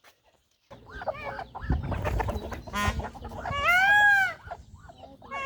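Chickens clucking and calling, with one loud drawn-out call rising and falling in pitch about three and a half seconds in and another starting at the very end.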